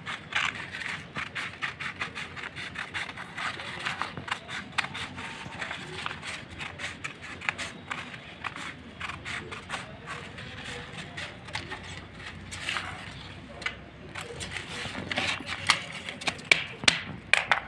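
Scissors cutting through stiff chart paper: a steady run of crisp snips with the paper rustling, and several louder snips near the end.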